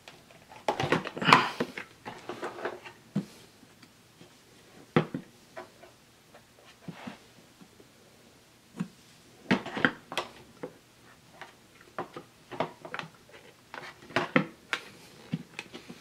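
Hard plastic parts of a Hoover Rewind bagless vacuum's dust cup being handled: scattered clicks, knocks and rattles as the cup is taken off the body and its lid worked, in short clusters with quiet gaps between.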